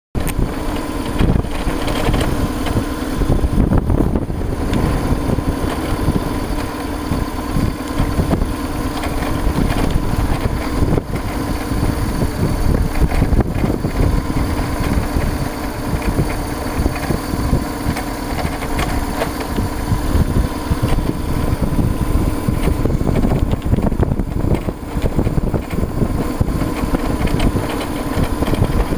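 BMW R1200RT motorcycle riding along a dirt road at a steady pace, heard from on board: a steady engine drone under heavy wind buffeting on the microphone.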